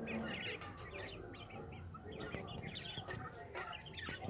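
Several caged Japanese quail calling: many short, high chirps and soft clucks overlapping in quick succession.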